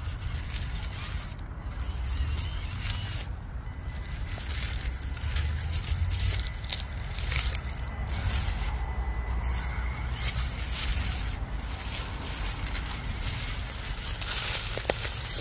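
Stones of railroad track ballast crunching and scraping in a continuous crackle of small clicks, over a steady low rumble.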